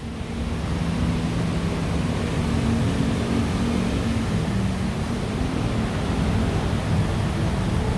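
An engine running nearby, a steady low drone that shifts a little in pitch, under a constant wash of hiss.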